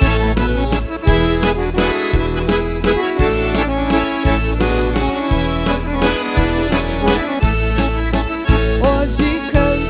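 Instrumental break of a country song: an accordion plays the melody in sustained, chord-rich notes over a bass line that changes about once a second.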